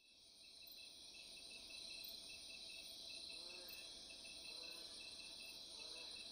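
Faint night ambience of crickets chirring steadily, fading in at the start, with three soft short calls about halfway through.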